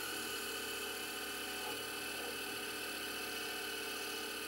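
Microlux 7x16 mini lathe running at a steady speed while turning a small aluminium part. It makes a steady machine whine that does not change in pitch or level.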